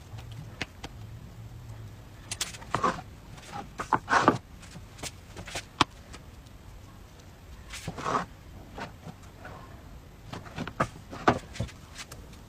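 Irregular handling sounds: soft taps, knocks and rustles as thin crepes are lifted and laid down on a cutting board. About a dozen short sounds, the loudest about four seconds in and again near the end.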